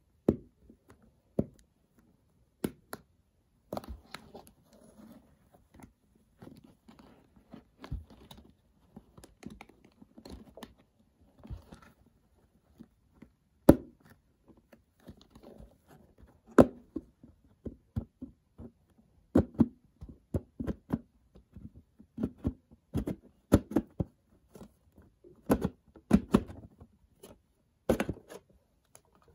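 Clear hard plastic display case being handled and opened by hand: irregular taps, knocks and scraping of plastic, with a few sharper clicks, coming thicker near the end.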